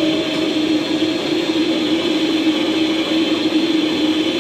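Metal lathe running under a turning cut, the tool peeling a continuous chip off the spinning workpiece. A steady hum with a steady higher whine above it, unchanging throughout.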